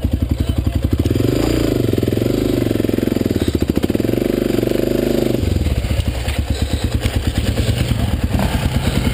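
Dirt bike engine close to the microphone, pulling up a loose, rocky climb: the revs rise and waver under load from about a second in, then drop back to a lower, steadier note about five seconds in.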